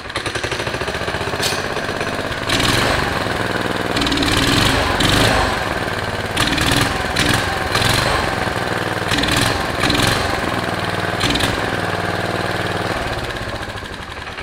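Small gasoline go-kart engine running after a carburetor cleaning and a raised idle. It is revved up in several surges and bogs down a little under throttle, then dies down near the end.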